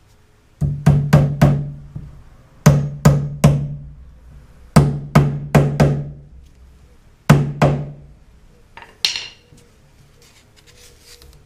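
Hammer driving cable staples into a wooden stud to fasten electrical cable: four quick runs of two to four sharp blows, each with a short low ring from the wood. A brief scrape follows about nine seconds in.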